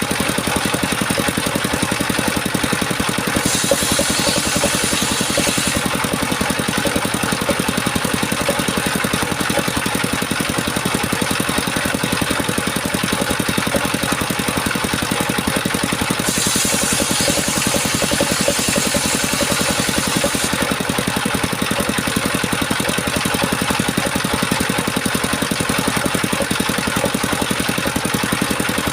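Engine driving a homemade circular-saw sawmill, running steadily with a fast even pulse. Twice, for a few seconds each, a high hiss rises over it, about three seconds in and again about sixteen seconds in.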